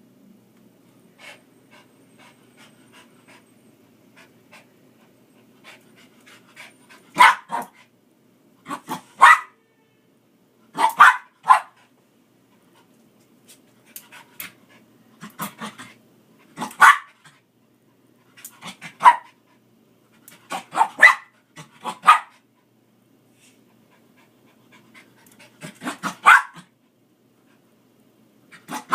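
A dog barking in short, sharp barks, singly and in pairs, every second or two from about seven seconds in, while it snaps at dust; the first few seconds hold only faint ticks.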